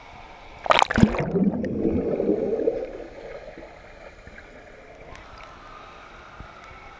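A person jumping into a swimming pool: a loud splash about a second in, followed by about two seconds of churning, bubbling water that then dies away.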